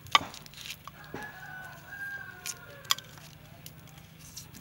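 A rooster crows once in the background, a long call of about two seconds starting about a second in. Kitchen scissors snip through dried red chili peppers with sharp clicks, the loudest right at the start and two more near the end of the crow.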